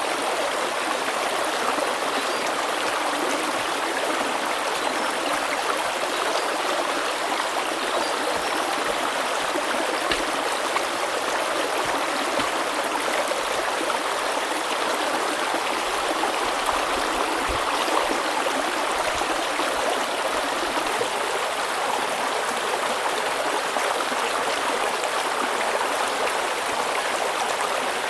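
Steady rush of flowing stream water, running on without change.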